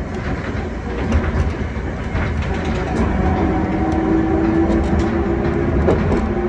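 Hankai Tramway's 1928 Kawasaki-built wooden tram running on its rails, heard from the driver's cab: a low rumble with scattered wheel clicks over rail joints. A hum from its nose-suspended traction motors comes in about three seconds in as it draws power.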